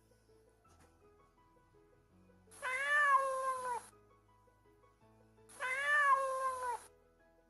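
A cat meowing twice, two long drawn-out meows about three seconds apart, each rising slightly and then falling in pitch at the end, over soft background music.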